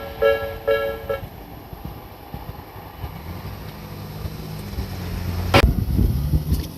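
An overhang-type level crossing's electronic warning bell (Tobu 'Nikko-type' sound B) rings in two-tone pulses about twice a second, then stops about a second in as the crossing clears. A road vehicle's engine then grows louder as it approaches and drives over the crossing, with a sharp knock near the end.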